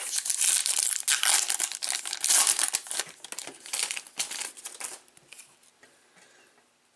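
Foil trading-card pack wrapper being torn open and crinkled in the hands. It dies down to scattered crackles and stops about five seconds in.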